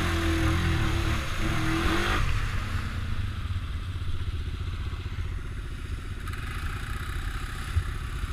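ATV engine pulling the quad through muddy water with splashing spray, then after an abrupt change about two seconds in, the engine idling with a rapid, even putter.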